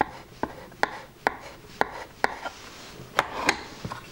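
Steel chisel blade clicking against a solid-wood board as wood filler is pressed into a cracked knot: a string of sharp taps, roughly two a second.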